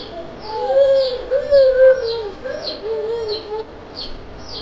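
A chick peeping repeatedly: short, high, falling peeps about twice a second. Under them, louder, lower drawn-out vocal sounds run for the first three seconds or so, then stop.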